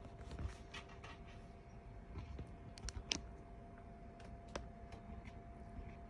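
Faint steady hum from a running desktop computer, with a few scattered small clicks and rustles, the sharpest about three seconds in.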